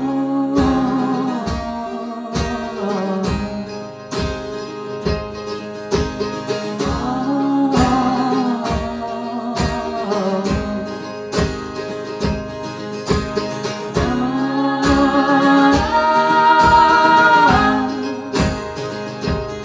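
Live song with strummed acoustic guitars keeping a steady beat under a sung melody. A long held high note swells to the loudest point a few seconds before the end.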